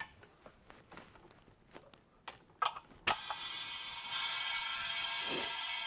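A few light clicks and knocks from handling fittings, then an air-hose quick-connect coupler snaps onto the inlet of a California Air Tools 2.5-gallon pressure pot about three seconds in. A steady hiss of compressed air follows as the pot is pressurized, getting louder about a second later.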